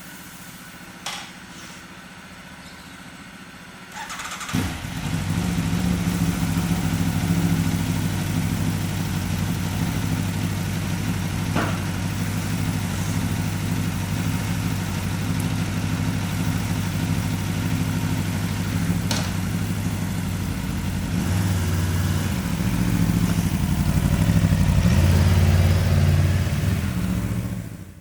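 Aprilia RSV4 1100 Factory's V4 engine starting about four seconds in and settling into a steady idle. It is revved lightly a few times near the end, then stops.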